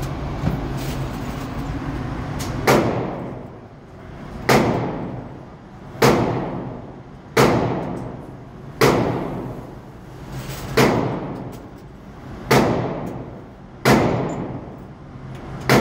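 Handgun fired nine times at a slow, even pace, about one shot every second and a half, each shot echoing briefly in an indoor range lane. Before the first shot, about two and a half seconds in, there is only low shuffling and handling noise.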